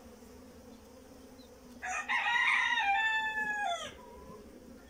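A rooster crows once, a call of about two seconds starting about two seconds in and dropping in pitch at its end, over the steady hum of honeybees from an open hive.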